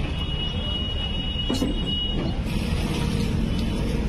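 Fire truck engine running steadily, a low rumble, with a thin high whine over it for the first couple of seconds.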